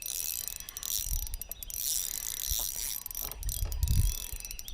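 Fishing reel clicking and ratcheting steadily while a big hooked fish, a catfish, is fought, with a few low thumps mixed in.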